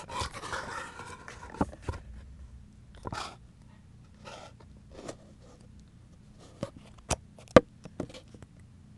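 Handling noise from a phone being moved about in the hand: rubbing at first, then scattered knocks and clicks, the sharpest about three-quarters of the way through.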